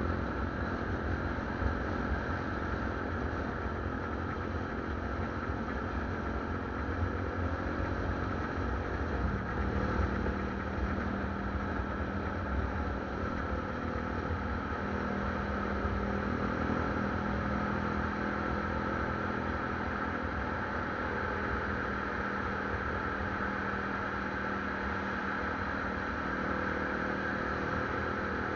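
Motorcycle riding in traffic: its engine runs under steady, gusty wind noise on the microphone. About ten seconds in, as the road enters a tunnel, a steady low hum joins and the sound turns more enclosed.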